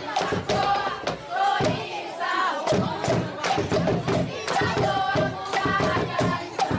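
Group of voices singing together over a steady pounding drum beat, with crowd noise mixed in: live folk music for a boi dance performance.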